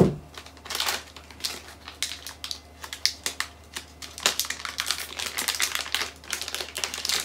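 Plastic ink-cartridge packaging being handled and torn open by hand: a quick run of irregular crisp clicks and crinkles, with a sharper knock right at the start.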